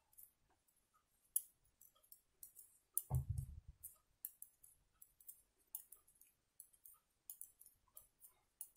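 Metal knitting needles clicking and ticking faintly at an uneven pace as yarn is worked stitch by stitch in purl. A brief low thump comes about three seconds in.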